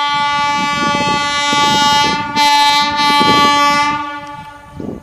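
Horn of a WAG-7 electric locomotive, sounded loudly in two long blasts with a brief break a little over two seconds in, over the rumble and clatter of the goods train's wheels.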